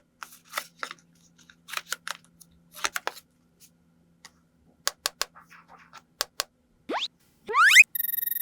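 Small plastic toy kitchen pieces clicking and tapping as they are handled, a string of light irregular clicks. Near the end come two quick rising whistle-like glides, then a steady pulsing tone starts.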